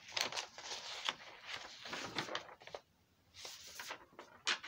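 Soft rustling of a sheet of drawing paper being handled, in short irregular bursts with a few light clicks.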